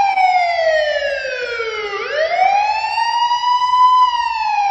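A siren wailing: its pitch falls slowly for about two seconds, sweeps back up over the next two, then begins to fall again.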